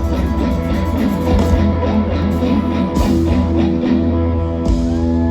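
Live band playing an instrumental passage on guitars and drums, settling into a long held chord near the end.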